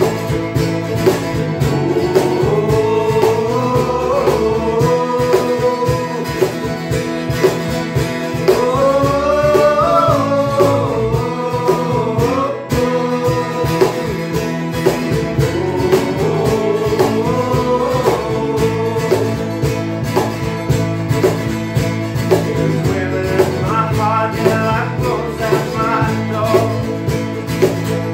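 Acoustic band playing a country-folk song: mandolin, acoustic guitars and cajon keep a steady strummed beat, while a man sings lead in several phrases.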